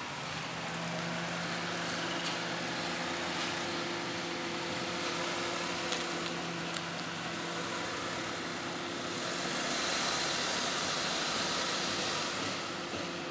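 Honda CR-V's engine running at low speed as the car manoeuvres and reverses into a driveway: a steady hum with tyre noise, growing louder for a few seconds near the end.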